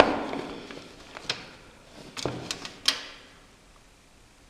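A handful of light, sharp clicks and taps from a steel tape measure and pencil being handled on a plywood panel while measuring, several of them close together in the middle.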